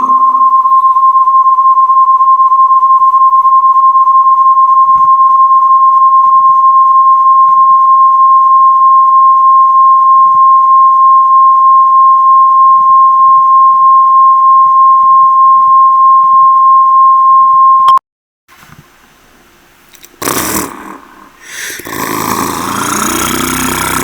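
A faulty microphone putting out a loud, steady, single high tone like an alarm beep, which cuts off suddenly about three quarters of the way through. Loud, rough noise starts near the end.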